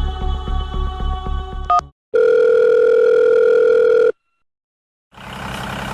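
Suspenseful background music with a steady beat ends with a short rising sweep. A loud, steady electronic beep like a phone tone follows, held for about two seconds. After a second of silence, a steady engine-like running sound starts near the end.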